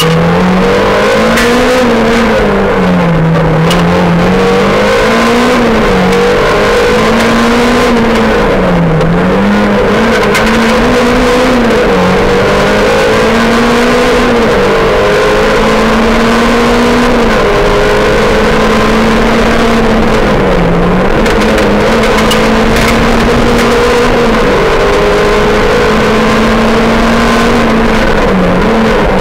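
Rally car engine heard from inside the cabin, driven hard on a stage. Its pitch climbs and drops sharply over and over through gear changes and lifts, and is held high through the longer straights. Road and tyre noise run underneath.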